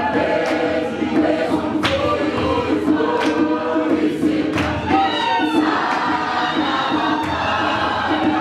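Large mixed student choir singing unaccompanied in a small hard-walled room, with sharp beats keeping time about once a second.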